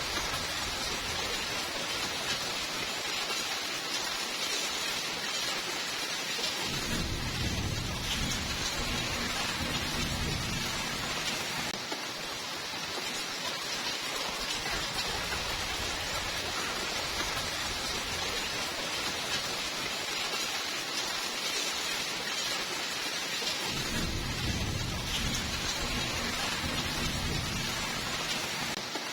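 Steady rainfall with two low rolls of thunder, one starting about a quarter of the way in and lasting a few seconds, the other near the end.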